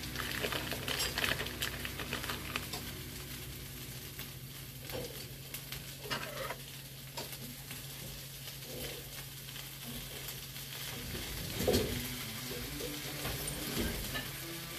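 Eggs and mushrooms sizzling in a frying pan while a wooden spatula stirs and scrapes them. The crackle is busiest in the first couple of seconds. About twelve seconds in there is a louder thump, likely the spatula knocking the pan.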